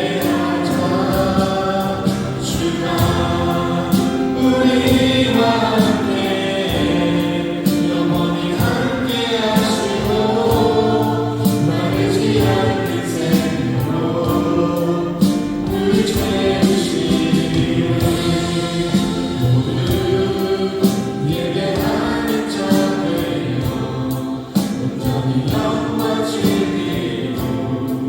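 A choir singing a gospel-style song with instrumental backing and a steady beat.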